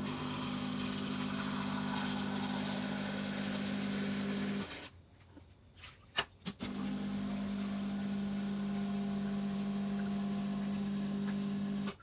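Espresso machine's water pump running with a steady hum, flushing clean water through the machine to rinse out the descaler. It stops about five seconds in, two clicks follow, and then it runs again until just before the end.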